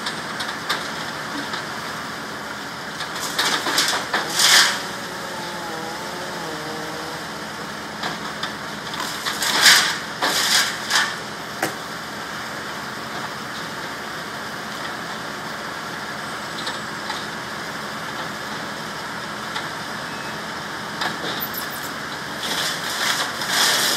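An engine running steadily, broken by three spells of louder, sudden noise: one about four seconds in, one about ten seconds in, and one near the end.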